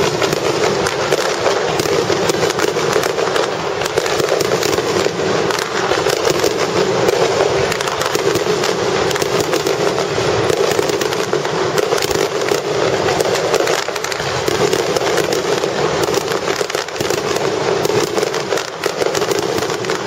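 Fireworks crackling: a dense, continuous string of rapid small pops and cracks.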